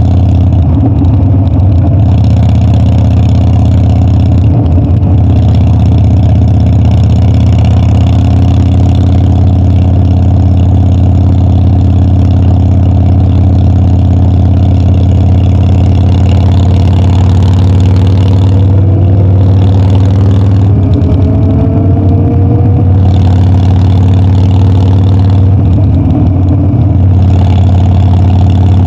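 Harley-Davidson Dyna's air-cooled V-twin engine running loud and steady under way, its pitch climbing as it accelerates about two-thirds of the way through.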